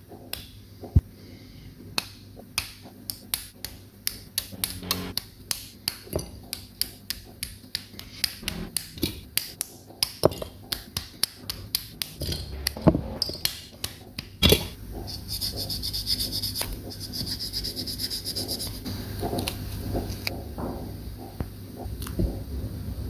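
Plastic model-kit parts being handled and snapped together: a quick series of sharp clicks, followed near the end by a few seconds of scraping.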